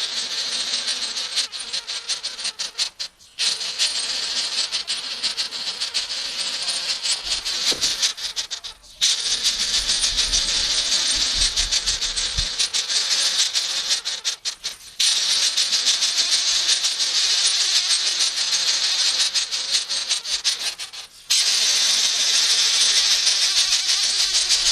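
Loud, steady high-pitched rasping insect chorus with a fast pulsing texture, broken by short dropouts about 3, 9, 15 and 21 seconds in.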